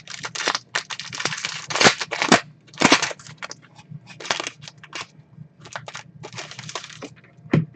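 Trading cards and their packaging being handled: a quick run of rustling, scraping and crackling strokes as cards are slid and flipped, with a few louder ones.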